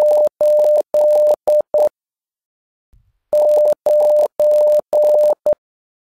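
Morse code beeps in a single steady mid-pitched tone: dah-dah-dah-dit-dit, the digit 8, then after a pause of about a second and a half, dah-dah-dah-dah-dit, the digit 9.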